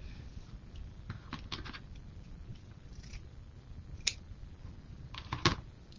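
Scissors cutting wired-edge ribbon into dovetail ends: a few short, sharp snips with light ribbon rustling between them, the loudest snip about five and a half seconds in.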